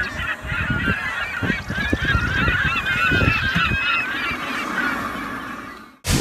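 A flock of birds calling, many short overlapping calls, over wind rumbling on the microphone; it fades out near the end.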